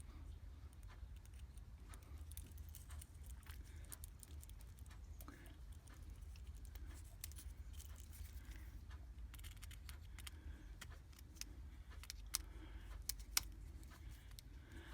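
Faint small metallic clicks and handling noises of wires being fastened to a switch's terminals, with a few sharper clicks near the end, over a low steady hum.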